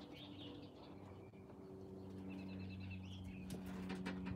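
Faint bird chirps, with a short repeated trill about halfway through, over a steady low hum, and a few light clicks near the end.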